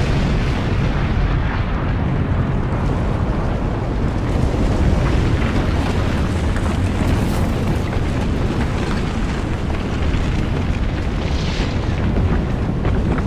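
Loud, steady rumbling roar, heaviest in the deep low end, with scattered crackles: an eruption-style sound effect. It holds level throughout, with no animal-like calls in it.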